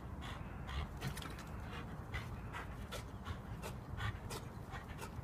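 American Staffordshire terrier panting hard while gripping a rubber ring toy in its jaws, in quick, irregular breaths about three a second.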